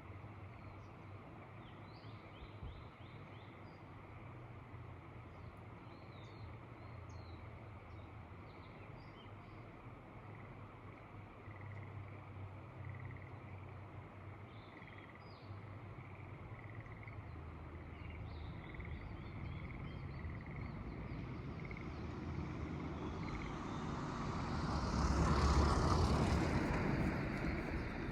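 Faint birds chirping and soft, evenly spaced short calls over a steady rural background. Near the end a vehicle passes, swelling in level and then fading.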